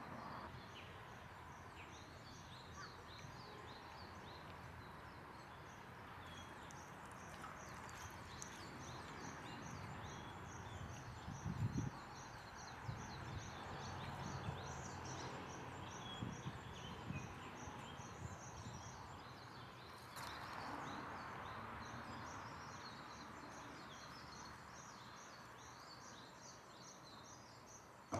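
Small wild birds singing, a high chirping phrase repeated over and over, over quiet outdoor background noise, with a few soft low thumps near the middle.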